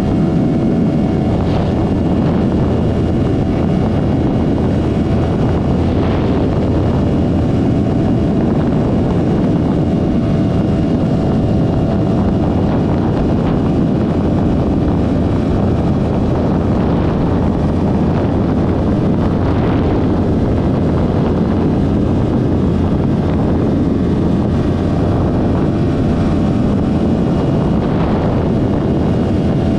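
2023 Yamaha R3's parallel-twin engine, breathing through an M4 Street Slayer aftermarket exhaust, running at a steady pitch while the bike cruises, with wind noise on the microphone.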